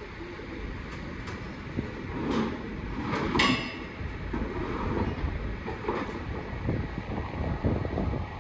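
Construction-site din: a steady low rumble with wind on the microphone, broken by several sharp metallic clanks, the loudest about three and a half seconds in.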